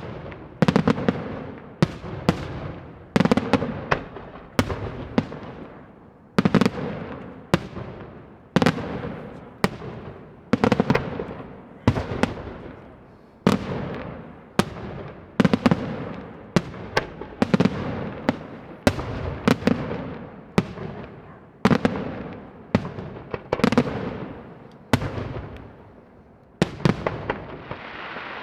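Daytime fireworks display: shells bursting in rapid succession, a sharp bang about every second, each trailing off in a rumbling echo. Near the end, the bangs give way to a steady hiss.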